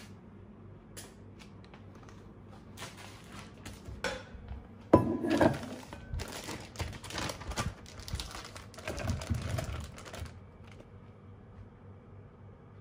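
A plastic zipper bag rustling and crinkling while chunks of food drop into an enamel bowl, with a sharp clunk about five seconds in. More rustling and light knocks follow, and it stops about ten seconds in.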